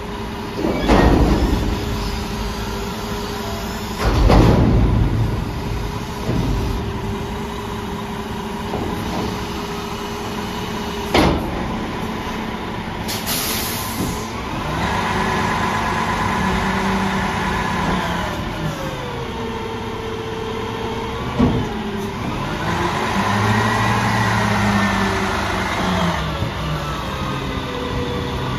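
Freightliner garbage truck with a Pak-Mor side-loader body, its diesel engine running with a steady hum. There are two loud bangs in the first few seconds and a short air hiss about halfway. After that the engine and hydraulics whine up and down in pitch twice as the truck works its hydraulics.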